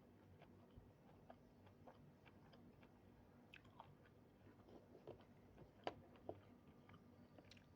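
Faint close-up eating sounds: soft chewing with scattered small wet mouth clicks, the sharpest about six seconds in.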